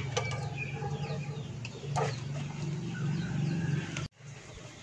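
Faint clucking of chickens and chirping of small birds over a low steady hum, with a couple of soft clicks; the sound cuts out for an instant about four seconds in.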